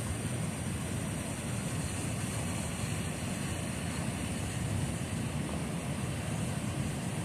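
Steady rushing of a fast-flowing river, an even low noise of moving water with no breaks.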